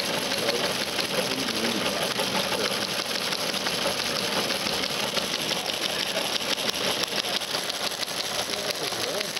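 Vintage teletype machine printing: a fast, steady mechanical clatter of its typing mechanism as it turns a 5-level stream of pulses, received as audio tones, into characters on paper.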